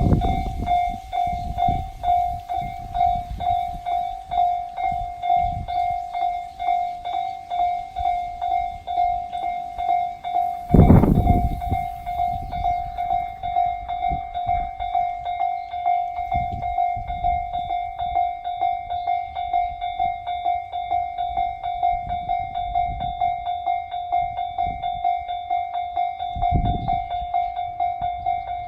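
Japanese railway level-crossing warning bell ringing steadily, about two strokes a second. Low rumbling and thuds run underneath, with a loud burst about eleven seconds in.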